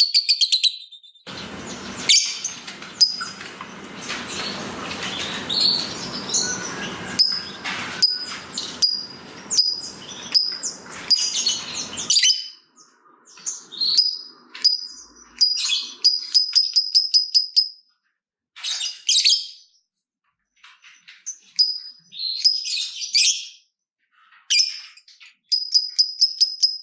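Lovebirds calling: fast runs of short, sharp, evenly repeated high chirps (the rapid "ngetik" chatter), a busy stretch of harsh chatter and clicks in the first half, then scattered chirps and another fast run near the end.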